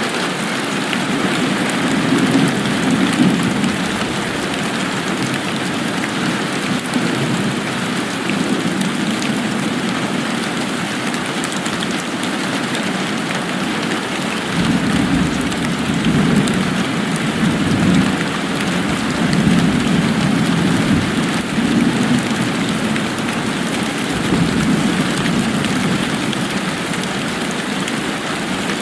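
Steady rainfall, an even hiss that never lets up. A low rumble swells and fades underneath it, briefly a couple of seconds in and then repeatedly through the second half.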